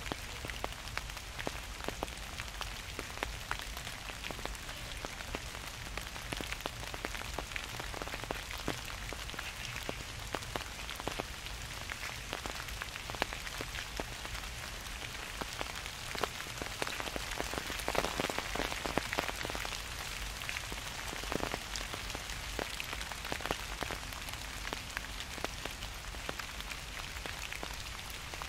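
Gentle rain falling steadily, with many individual drops ticking sharply on nearby surfaces over a soft hiss. It grows a little heavier for a few seconds around the middle.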